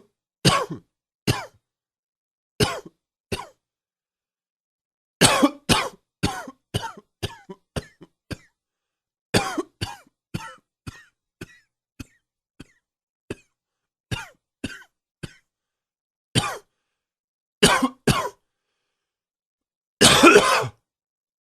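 A man's smoker's cough: repeated bouts of harsh coughing. Some bouts are single coughs or pairs. Two long runs of rapid coughs fade weaker toward their ends, and a longer, heavier cough comes near the end.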